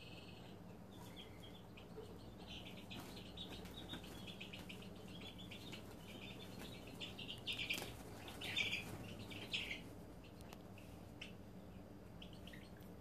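Serama chicks, about six weeks old, making quiet, cricket-like trilling snores as they settle and fall asleep. The high, rapid trills overlap from about a second in and are loudest between about seven and ten seconds in.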